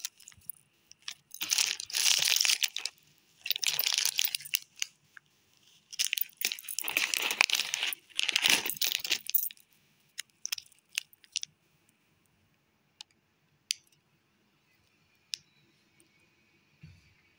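Plastic and foil sweet wrappers crinkling as wrapped candies are picked up and handled, in three spells over the first nine seconds or so, followed by a few faint clicks.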